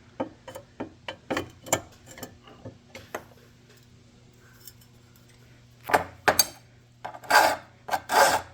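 Hand file worked over a small part in one-way strokes, a series of short quick strokes and light clicks, then a pause, then a few longer, louder rasping strokes near the end.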